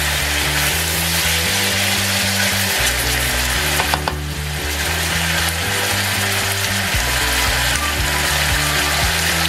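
Chicken pieces with onion and garlic sizzling in hot oil in a pan while a silicone spatula stirs them. Background music with a bass line stepping from note to note plays underneath.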